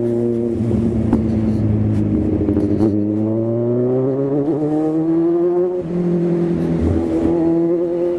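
Kawasaki Z1000's inline-four engine running under way, heard through a helmet-mounted microphone. Its note climbs steadily for a few seconds, drops with a gear change about six seconds in, then holds steady.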